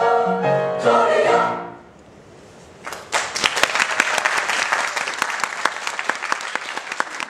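Mixed middle-school choir sings the last notes of a piece and releases the final chord about a second and a half in; after a short pause the audience breaks into applause.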